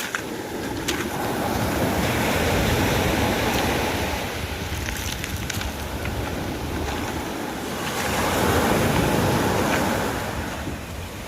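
Sea waves washing onto the beach, swelling twice and falling back, with wind buffeting the microphone.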